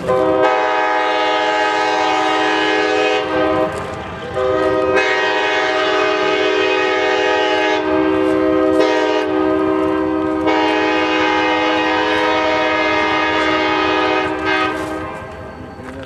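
Nathan K-5LAR24 five-chime locomotive air horn on an Alco C420, sounding one long held chord. It dips briefly about four seconds in, comes back, and fades out near the end.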